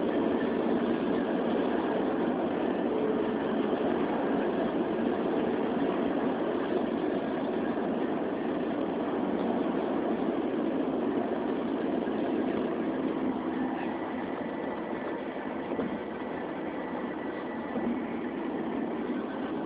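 Steady road and engine noise inside a car cruising at motorway speed, heard through a phone's microphone. It eases off slightly about two-thirds of the way through.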